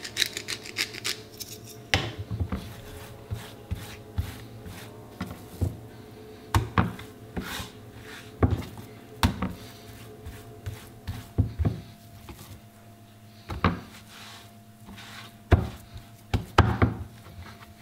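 Hands slapping, pressing and rubbing a raw steak against a wooden cutting board: irregular soft thumps about once a second with rubbing between them, the loudest slaps near the end.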